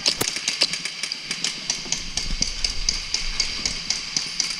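Airsoft guns firing a rapid run of sharp shots, about four to five a second.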